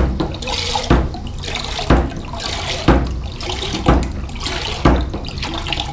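Manual hand pump on a large bottled-water jug being pushed down about once a second, each stroke a knock followed by a gush of water splashing into a pan.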